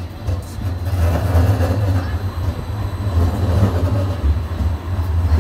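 Low rumble of a large vehicle, swelling about a second in and staying loud.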